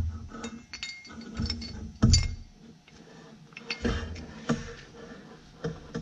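Small metal parts clinking and knocking as a stick-shift lever assembly is handled on the bench. The clinks ring briefly, with the loudest knocks about two seconds in and around four seconds in.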